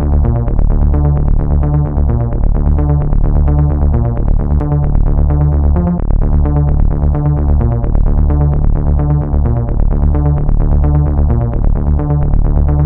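Electronic synthesizer music with a steady beat.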